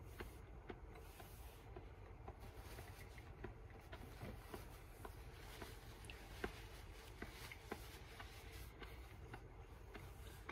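Faint chewing while eating: small scattered mouth clicks over a low steady hum.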